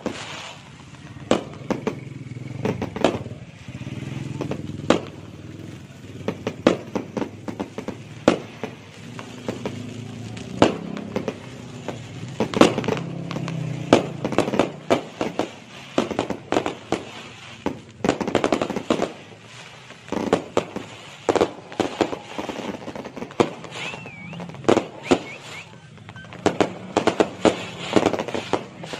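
Fireworks display going off: many sharp bangs from aerial shells and cakes, coming irregularly and often in quick runs of several.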